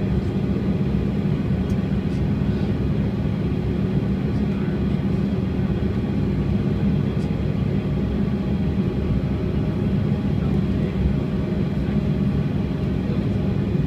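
Cabin noise inside a Bombardier CRJ200 climbing out after takeoff: the steady, even drone of its rear-mounted GE CF34 turbofan engines and the airflow past the fuselage, heavy in the low end with a strong low hum.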